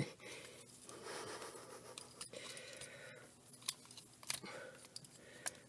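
Faint clicks and rustling of a plastic Transformers figure's parts being moved and readjusted by hand, with a few sharp clicks about two, three and four seconds in.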